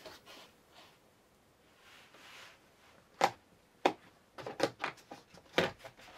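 Plastic screwdriver handles and a hard plastic carrying case being handled: a few seconds of quiet, then a string of sharp light clicks and knocks, with several close together about two-thirds of the way in.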